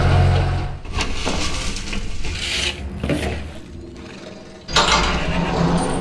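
A tractor engine running, its hum stopping about a second in. Then comes rough scraping and rasping as a steel drag harrow rakes over loose arena dirt. Near the end a sudden, louder wooden rubbing sound follows.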